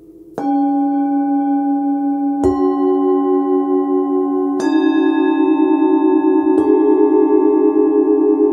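Hand-forged Tibetan singing bowls from a seven-bowl chakra set struck one after another with a felt mallet: four strikes about two seconds apart, each new bowl's note ringing on over the others so the tones build into a sustained chord with a slow wavering beat.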